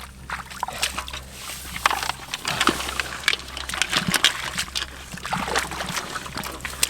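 Hands sloshing and splashing in shallow muddy water while groping for fish, with many irregular small splashes.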